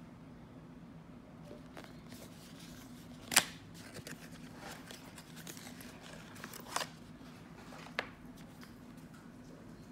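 Handling of a small cardboard box and the coin's presentation case: a loud sharp cardboard scrape as the box flap is worked open, more scraping as the case slides out, and a single sharp click near the end, over a faint low hum.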